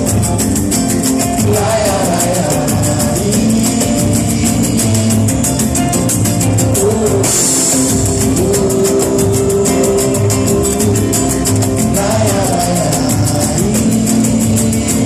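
Live acoustic pagode band playing an instrumental passage: strummed guitar and other strings over a fast, steady percussion beat.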